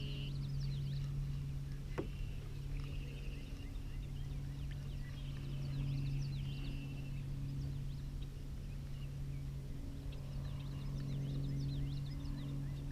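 Many small birds chirping over a steady low hum, with one sharp click about two seconds in.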